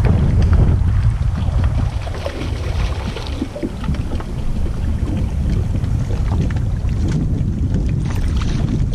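Wind rumbling on the microphone with water against a bass boat's hull. Near the end there is splashing as a hooked spotted bass is pulled to the side of the boat.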